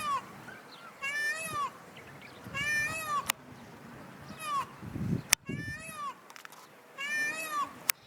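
Indian peafowl calling: loud, wailing, cat-like calls, each about half a second long. They come at the start, about a second in, near three seconds, and after a pause near seven seconds. A few sharp clicks fall between the calls.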